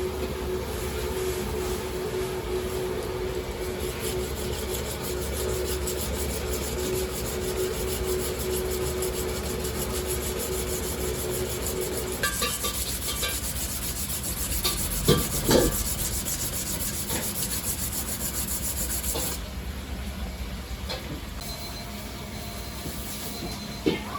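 Kitchen knife being sharpened on a whetstone: fast, repeated grinding strokes of steel on stone, which stop about 19 seconds in. A couple of knocks come around the middle.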